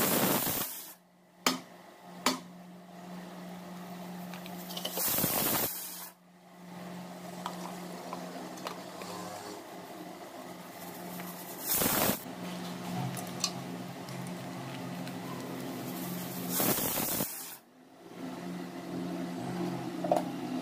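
Kitchen utensils knocking and scraping against a stainless-steel mixer-grinder jar as ingredients are tipped in: a couple of sharp knocks near the start and several short bursts of scraping, over a steady low hum.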